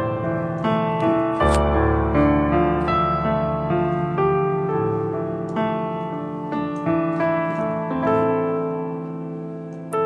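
Solo piano playing a slow melody over sustained chords, with a deep bass note coming in about a second and a half in: the instrumental introduction of a ballad, before the singing starts.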